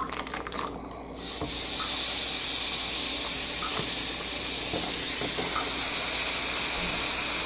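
Raw ground beef sizzling on the hot plates of a George Foreman grill: a steady, loud hiss that starts about a second in as the meat goes down and holds even.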